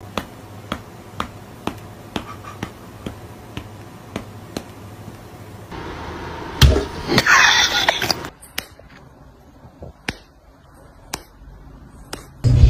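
Cat paws swatting: a run of light, regular slaps about twice a second, then a louder thump and a short scuffle, then a few scattered taps.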